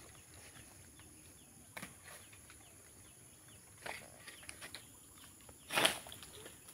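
Quiet, with a steady faint high hiss and a few small rustles. Near the end comes a short, louder rustling scrape as a long-pole sickle works among an oil palm's fronds.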